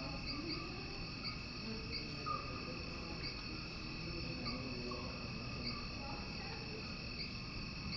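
Crickets chirping: a steady high trill with a sharper chirp repeating about once a second.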